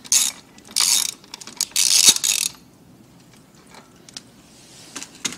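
Socket ratchet clicking in three quick bursts as a spark plug is backed out of a motorcycle's cylinder head, followed by a few faint clicks.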